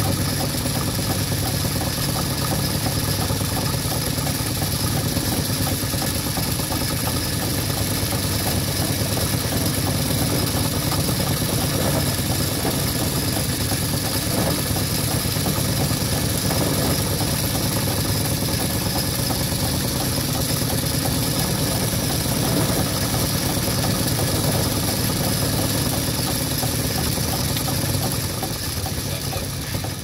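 Metal lathe running steadily, its motor and gearing giving a constant hum with a high whine above it, while a lathe tool turns a chamfer on the end of a small steel part held in the chuck. The level eases slightly near the end.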